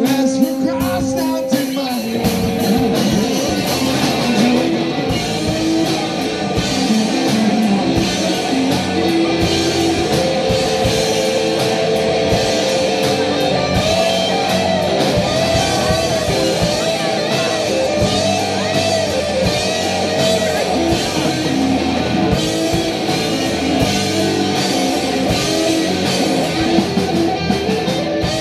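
Rock band playing live on electric guitars and a drum kit.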